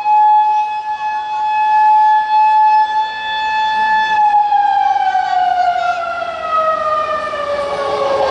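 Siren sound effect played over the sound system: one steady pitched wail that starts to fall slowly in pitch about halfway through, with a noisy rumble coming up near the end.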